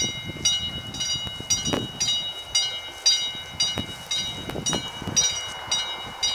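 Classic level-crossing warning bell striking about twice a second, each stroke ringing with a bright metallic tone. The crossing is sounding its warning for an approaching train.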